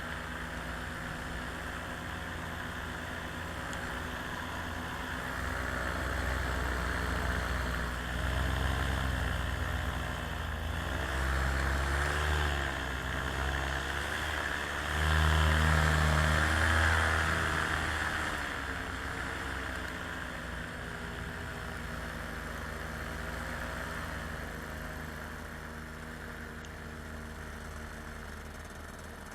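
An engine running steadily, its pitch wavering up and down; it grows louder to a peak about halfway through, then eases off again.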